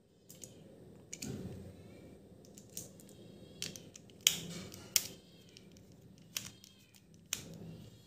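Precision screwdriver working tiny screws out of a plastic remote-control Beyblade, with scattered small clicks and plastic handling taps; the sharpest clicks come about four and five seconds in.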